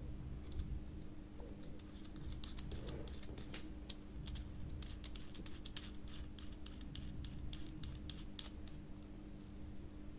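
Light metallic clicks and clinks, many in quick irregular succession, from handling a soldering iron while its tip is swapped for a flatter one. A steady low hum runs underneath.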